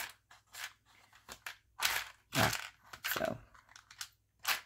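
Small plastic shank buttons and metal charms clicking and rattling against each other and the plastic walls of a divided storage box as a hand rummages through one compartment, in irregular bursts, the loudest about two seconds in.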